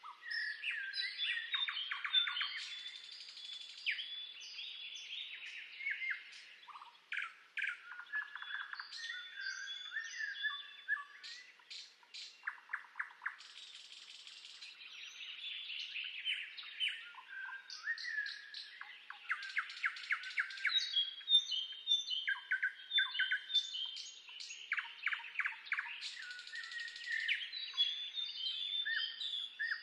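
Several songbirds singing and calling at once: overlapping chirps, short whistled phrases and rapid trills.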